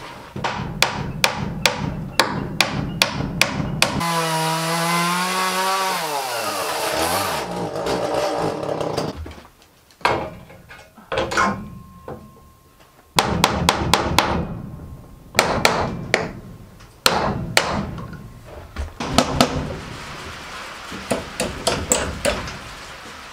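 Hammer driving nails into live-edge wooden siding boards: runs of sharp strikes, about three a second. About four seconds in, a pitched drone falls in pitch over a few seconds.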